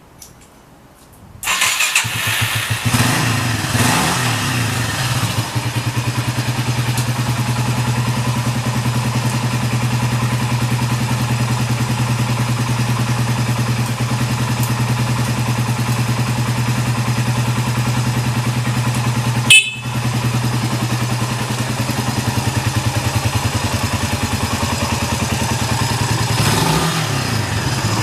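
Yamaha SRX250's single-cylinder four-stroke engine catching on the electric starter about a second and a half in, then idling steadily. A brief sharp click about two-thirds of the way through, and the revs begin to rise and fall near the end.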